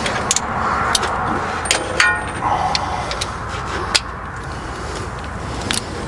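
Hand tools clinking while a socket extension is taken off and a wrench is set to a sway bar end link nut: scattered sharp metal clicks, one about two seconds in ringing briefly, over a steady background hum.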